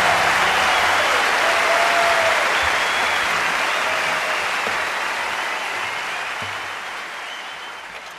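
Concert audience applauding at the end of a gypsy-jazz number, fading out steadily over the second half.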